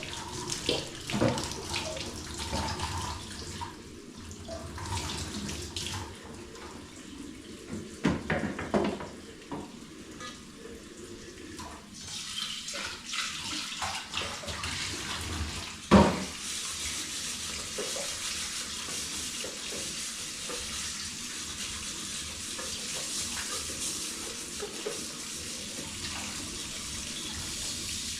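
Water running into a sink while dishes are washed by hand, with scattered knocks and clinks through the first half and one loud knock about halfway. A steady flow of running water fills the second half.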